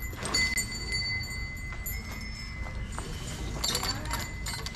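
Light metallic clinking with a steady high ringing tone underneath; a sharp clink just after the start and a quick cluster of clinks near the end.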